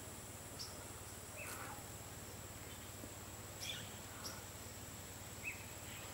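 Amazon rainforest ambience: a few short, faint bird chirps scattered through, over a steady high-pitched insect buzz.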